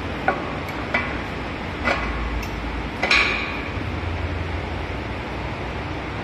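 Four or five sharp metal clinks and knocks in the first three seconds from the metal fittings of a ceiling-mounted surgical light's arm as it is handled onto its mounting bolt. The last clink is the loudest and rings briefly, over a steady background hiss.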